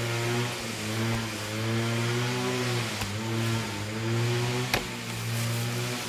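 A small engine running steadily, its pitch wavering slightly. A faint click about halfway and a sharp knock near the end.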